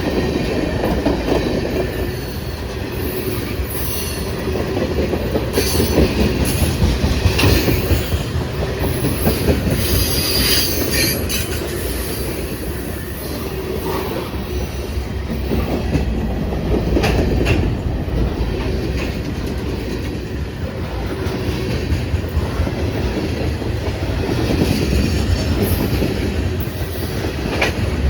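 Freight cars of a passing CSX train rolling by at close range. Their steel wheels clatter over the rail joints, with short high-pitched wheel squeals now and then.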